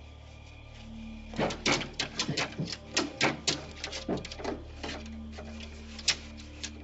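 A rabid St. Bernard attacking a car window: a dense run of sharp crashes and snarls lasting about three and a half seconds, then one more sharp hit near the end.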